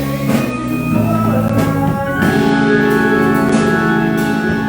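Live instrumental church worship music: a band playing held chords, the chords changing about one and two seconds in.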